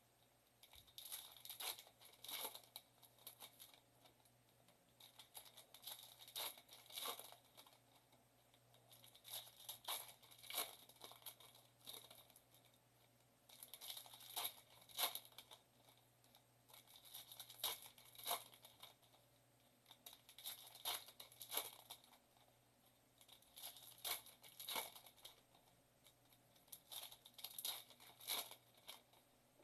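Foil wrappers of trading-card packs being torn open and crinkled by hand: short clusters of ripping and crackling that come every few seconds, with quiet gaps between.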